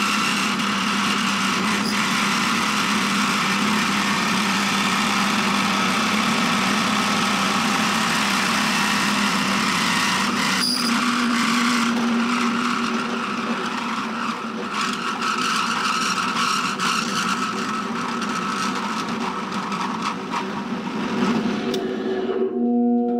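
Drill press running at about 3000 RPM with a flat-ground driver bit pressed hard onto a steel washer, a steady motor whine with grinding friction noise. The friction heats the washer to red heat as it is friction-welded to the steel strip. Near the end the grinding noise drops away.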